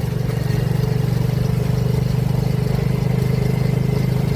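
Honda motorbike with sidecar (a Thai saleng) running at a steady riding speed, its engine holding an even pitch with a fast, regular pulse.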